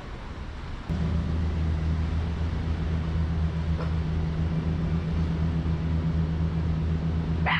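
A steady, low mechanical hum that sets in about a second in and holds without change, with a brief higher rising sound at the very end.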